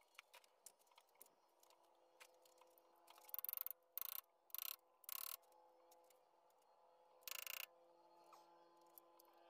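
Hand tools working at a stripped VW air-cooled engine crankcase: a few light clicks, then five short scraping bursts of metal on metal, four close together about three to five seconds in and one more near the end.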